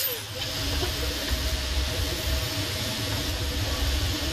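Steady hiss of a TIG welding arc on stainless steel pipe, over a low uneven rumble.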